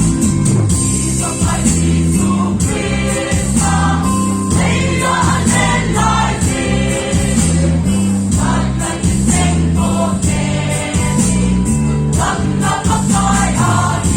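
Music: a song sung by several voices together over a band backing with a steady bass line.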